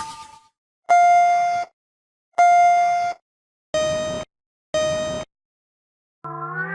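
Four electronic beeps: two longer ones at one pitch, then two shorter, slightly lower ones, with gaps of silence between. A rising synth sound fades out at the start and starts up again near the end.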